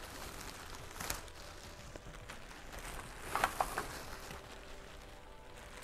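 Packaging being opened and handled by hand: a sharp tick about a second in, then a brief cluster of rustles and knocks about three and a half seconds in, over faint handling noise.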